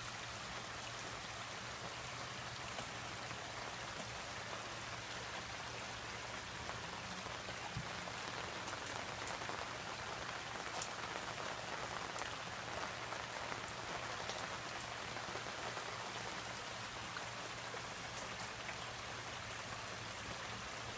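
Steady rain falling, an even hiss with scattered single drops ticking.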